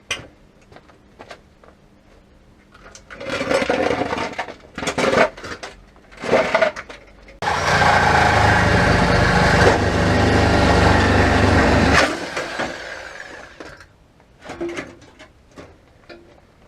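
Reciprocating saw cutting through a car's steel body shell: a few short bursts, then a steady cut of about four and a half seconds that stops suddenly. Scattered knocks and clicks of handled metal before and after.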